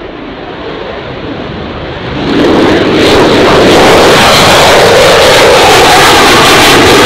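Jet noise from an F-35 Lightning II's single F135 engine at takeoff power as the fighter lifts off and climbs out. It grows suddenly much louder about two seconds in and then stays loud and steady.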